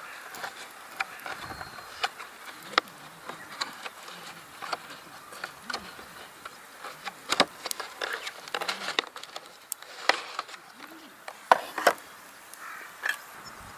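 Wood fire crackling and popping: irregular sharp snaps, a few louder ones near the middle and toward the end.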